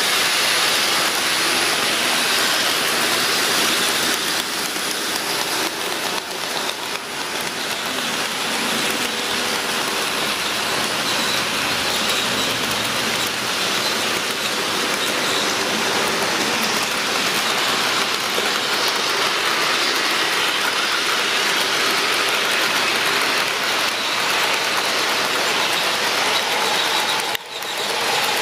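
HO scale model freight train rolling past on sectional track, its wheels on the rails making a steady rushing clatter. A faint high whine joins about a third of the way in, and the sound briefly drops out near the end.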